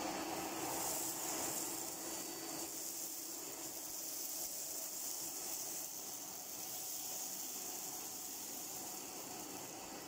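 Hitachi CV-95N commercial tub vacuum cleaner running, its 800-watt motor giving a steady rushing hiss of air as the floor tool sucks over the carpet. A faint steady tone in the motor note fades out a couple of seconds in.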